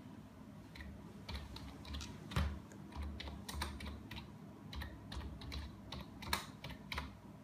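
Typing on a laptop keyboard: an irregular run of key clicks as a word is entered letter by letter, with a couple of harder keystrokes standing out.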